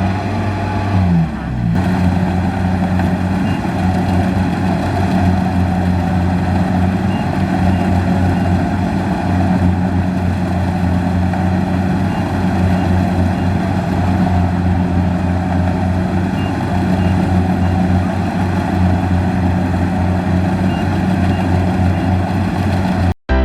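Kubota DC-70 combine harvester's diesel engine running steadily with the machine's working clatter, its pitch dipping briefly about a second in. It cuts off abruptly just before the end.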